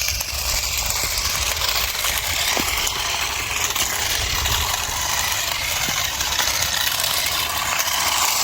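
Battery-powered remote-control toy cars driving along the road: a steady noise of small electric motors and tyres on the pavement, with a low rumble underneath.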